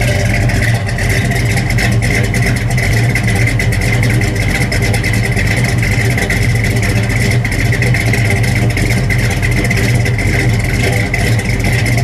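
1973 Plymouth Duster's 408 cubic-inch V8, built to just under 600 hp, idling steadily through its exhaust. The even idle is called absolutely perfect, the work of a carefully tuned carburetor.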